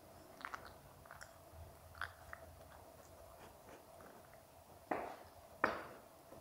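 Golden retriever puppy mouthing and chewing at an adult golden retriever's face. There are soft scattered clicks, then two louder sharp sounds about a second apart near the end, over a faint steady hum.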